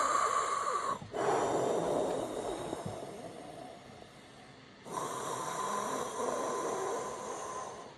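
A man blowing breath out through pursed lips to imitate the wind: three long breathy whooshes, the second fading away before the third starts.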